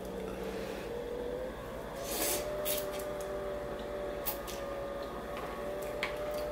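Eating instant noodles with chopsticks: a few short slurps and mouth noises, one about two seconds in and more around the four-second mark. A steady background hum runs underneath.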